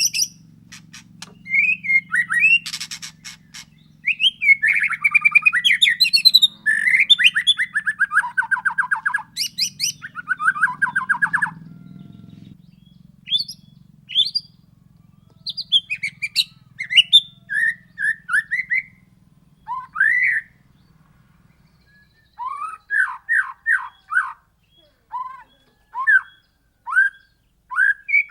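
White-rumped shama (murai batu) in full song: a dense run of fast rattling trills, buzzy sweeps and whistled phrases, then short separate rising whistles that come in a quick series near the end. A low steady hum underlies most of it and stops about three quarters of the way through.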